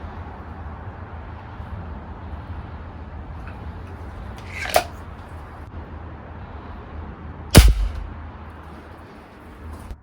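A single shot from a .22 Hatsan Zada break-barrel air rifle, a sharp report with a low thump, about three-quarters of the way through. A shorter, quieter click comes about two and a half seconds before it.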